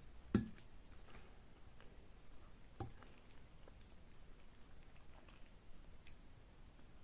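Close-miked eating sounds while eating Korean noodles: a few sharp, wet clicks, the loudest about half a second in and another near three seconds, over a quiet background.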